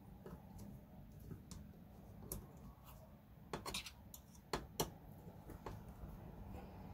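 Allen hex driver scratching and clicking at a small servo horn screw on an RC truck: scattered light scrapes and sharp ticks, with a short cluster of louder clicks about halfway through.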